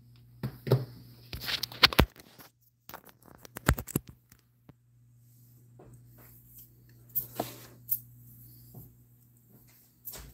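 Kitchen handling noises: scattered clicks, knocks and rustling from items being moved about on a counter, over a steady low hum.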